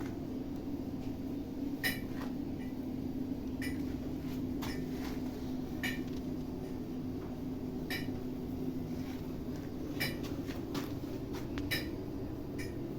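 Sharp metallic clinks of metal striking metal, coming irregularly every second or two, over a steady electrical hum.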